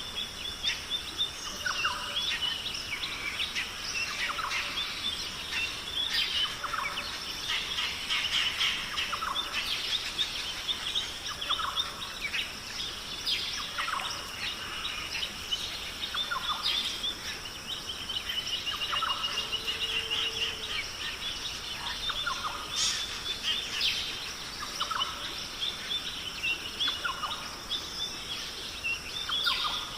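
Rainforest ambience: many birds chirping and calling, quick short notes overlapping, over a steady high-pitched drone.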